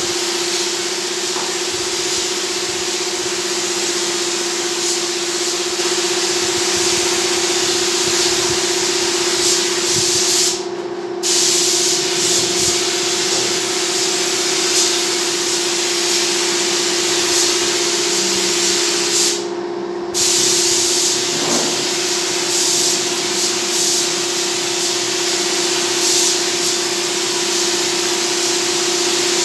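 Gravity-feed air spray gun hissing steadily as it sprays paint, with the air cutting off briefly twice, about a third and two-thirds of the way through, when the trigger is released. A steady hum runs underneath.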